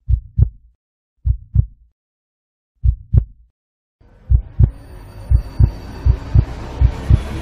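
Heartbeat sound effect: paired low thumps about once every second and a half with silence between. About four seconds in, a rising hiss and drone comes in and the heartbeat quickens.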